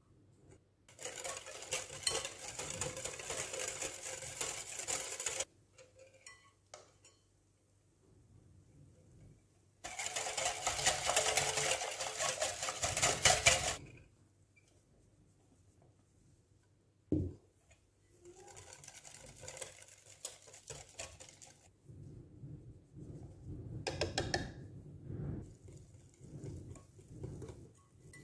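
Wire balloon whisk beating a runny egg, sugar and milk mixture in a glass bowl: rapid rattling strokes in two loud spells of about four seconds each. A single knock comes partway through. After that the whisking is quieter and slower as flour is worked in to a thicker batter.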